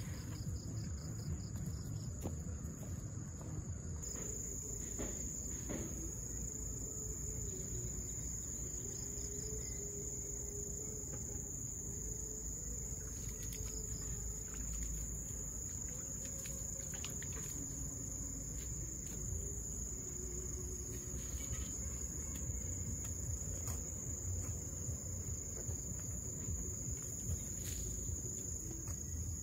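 Insects trilling in one steady, high-pitched drone that grows louder about four seconds in, over a low rumbling outdoor background, with a few faint knocks.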